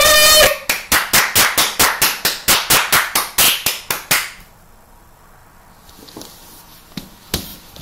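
A short, loud, high squeal, then a fast, even run of about eighteen sharp, clap-like strikes, about five a second, lasting some four seconds. A few single taps come near the end.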